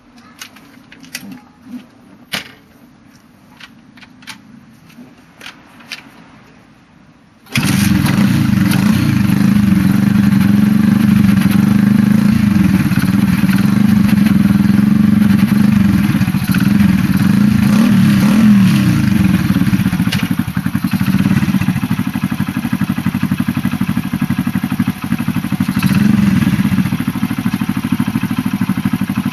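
A few sharp clicks, then about seven and a half seconds in the Honda Gorilla's CD90 single-cylinder four-stroke engine, bored up to 105cc, starts abruptly and runs steadily through its chrome aftermarket exhaust, the note wavering a little now and then.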